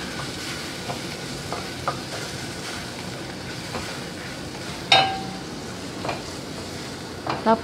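Chopped onion and garlic sizzling as they sauté in a pot, stirred and scraped with a spatula, with small scraping clicks and one sharp knock of the spatula against the pot about five seconds in.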